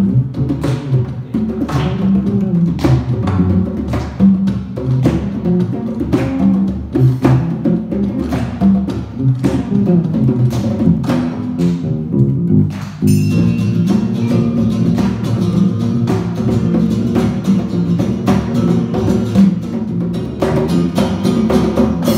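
Live instrumental band playing a funk groove on electric bass, congas with cymbals, and guitar. About 13 s in the playing drops out for a moment, then comes back fuller and brighter.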